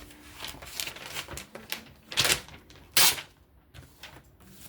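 Handling noises from a folding knife being taken out and handled: scattered light clicks, then two loud, brief rasping swipes a little under a second apart.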